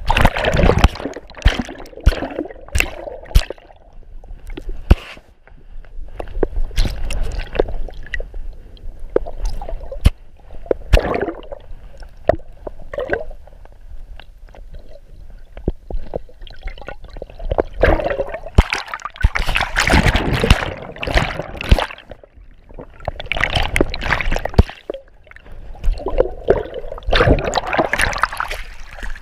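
Water sloshing and gurgling around a chest-mounted GoPro submerged on a dog moving through water, with many sharp clicks and knocks scattered throughout. Louder surges of sloshing come about two-thirds of the way through and again near the end.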